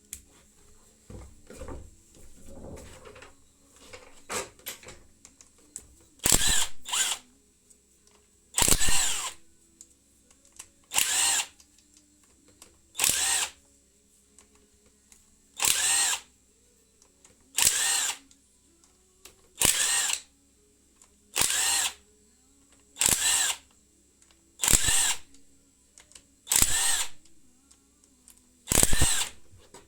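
A handheld power drill/driver run in a dozen short bursts, about one every two seconds, each whirring up and back down, as in running fasteners in or out. Before the first burst there are a few seconds of light clicks and handling.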